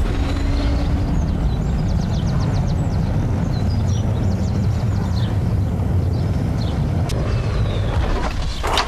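Sound effect of jet thrusters on the feet: a steady, heavy rushing rumble of thrust, strongest in the bass, that fades away near the end.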